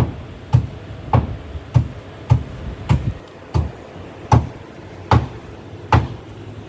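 Hammer blows on timber formwork boards, about ten strikes at a steady working pace that slows slightly towards the end, as the wooden forms for a concrete pour are nailed up.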